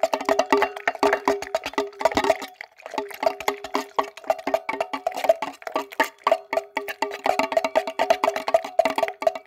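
Instant coffee mix being stirred in a stainless steel cup. The utensil clinks rapidly and continuously against the metal, and the cup rings with a steady tone. The stirring pauses briefly about two and a half seconds in.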